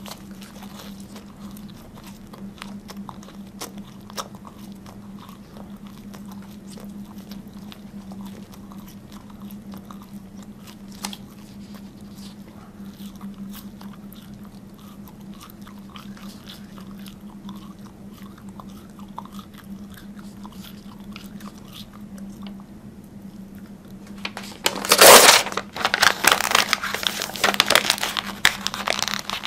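Close-up chewing and biting of paper, with small scattered crunches and clicks over a steady low hum. Near the end the paper is crumpled and rustled loudly right at the microphone.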